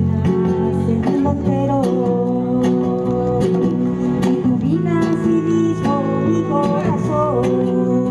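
Live folk music: strummed acoustic guitar under singing, with short sharp percussive strokes running through it.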